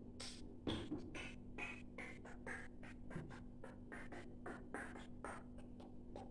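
Small kitchen knife cutting a tomato held in the hand, a run of short scratchy strokes about three a second, over a faint steady hum.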